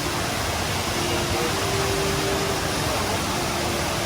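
Rain Vortex indoor waterfall: a steady, even rush of water falling into its pool.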